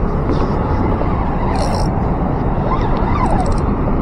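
Wind buffeting a body-worn camera's microphone on open water, a steady low rumbling noise.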